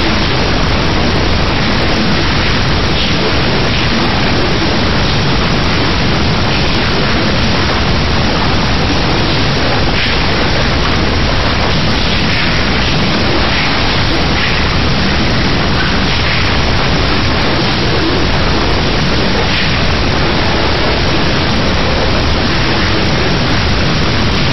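Loud, steady hiss with no clear events in it.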